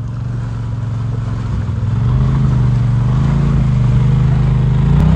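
Quad bike engine revving under load. It grows louder over the first two seconds, and its note rises and falls as the throttle works.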